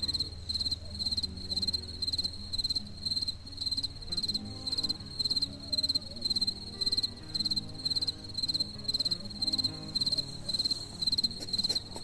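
A cricket chirping steadily at one high, even pitch, about two chirps a second.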